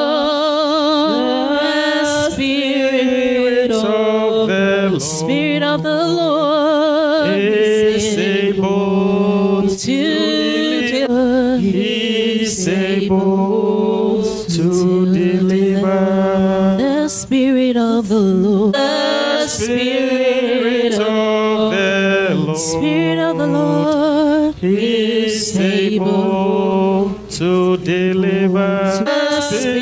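A woman singing a slow gospel worship chorus into a microphone, holding long notes that waver in pitch.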